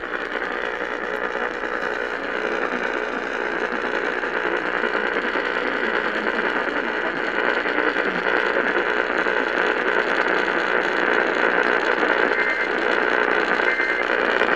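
Static and hiss from an AM radio receiver, a steady rushing noise with no voice or alert tones, slowly growing louder.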